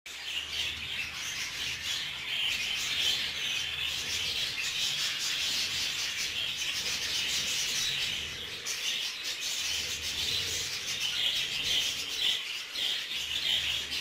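Budgerigars chattering: a dense, steady twittering of many overlapping chirps.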